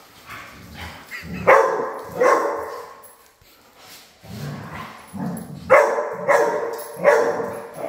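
Dogs play-fighting, giving loud barks in two clusters: two about a second and a half in, and three more from about six seconds.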